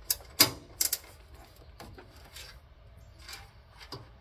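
Sharp metallic clicks and clacks from a lawn tractor's steel seat slide and mounting bracket being worked by hand, four loud ones in the first second, then fainter scattered ticks.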